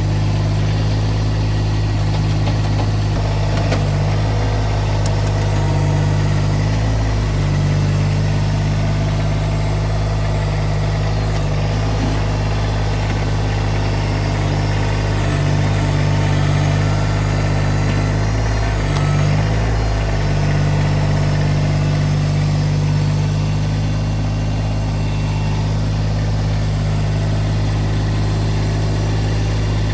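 Engine of a small loader running steadily while scraping the ground, with a few short dips in its low hum around the middle.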